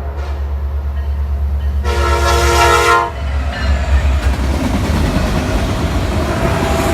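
Freight locomotive sounding one horn blast of about a second, about two seconds in, over the steady deep rumble of its diesel engine. After the horn the train keeps passing close by, with a rising clatter of wheels and cars.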